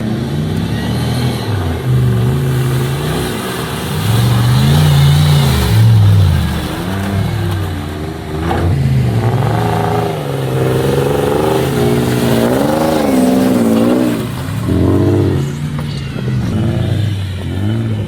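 Off-road 4x4 engine revving up and down again and again, its pitch rising and falling.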